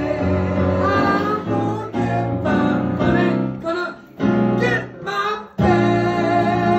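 A performer and a seated audience singing a folk song together in harmony, with keyboard accompaniment. The singing comes in short phrases with brief breaks, then settles into a long held note near the end.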